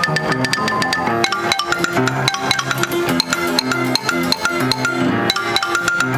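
1920s Seeburg Style E coin-operated player piano playing a tune from its paper roll, its hammers striking the strings in a quick, even rhythm.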